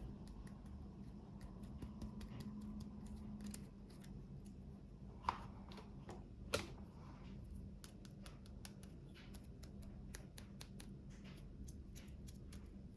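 Small clicks and crackles of toy packaging being handled and opened by hand, with two sharper clicks near the middle.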